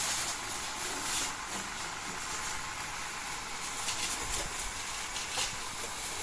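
Pump-fed high-pressure water jet hissing steadily as it sprays onto a tractor's metal body and tyres, with a few short louder spurts.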